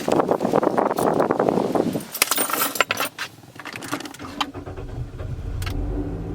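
Car keys jangling, then a few sharp clicks as the key goes into the ignition; about four and a half seconds in, the car's engine turns over and settles into a low steady run after a reluctant start.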